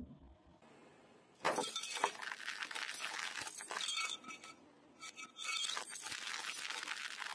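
Brittle objects cracking and shattering under a rolling car tyre. It is a dense run of crackling crunches, starting about a second and a half in, pausing briefly around five seconds, then starting again.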